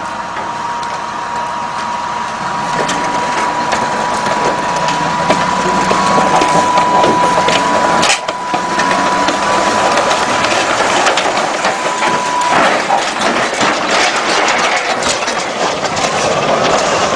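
Tracked armoured vehicle climbing onto a lowboy trailer: its engine running with a steady high whine and its tracks clanking and grinding. Near the end, dense crunching and clattering as it tips over onto its roof.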